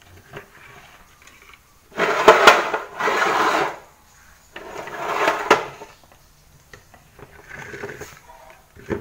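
Plastic soapmaking containers and a silicone spatula being handled and scraped, in three loud, noisy bursts about a second long, with a softer one near the end.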